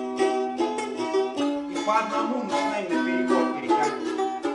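Three balalaikas played together, rapid strummed strokes over a held low note.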